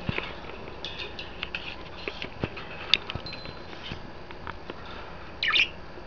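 Budgerigars chattering: scattered short chirps and sharp clicks, with one louder scratchy call about five and a half seconds in.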